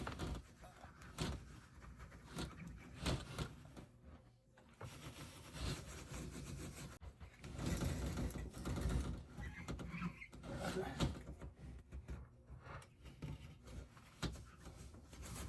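Irregular rubbing and scraping with scattered light knocks and clicks: adhesive residue from old duct tape being worked off a storm door with Goo Gone.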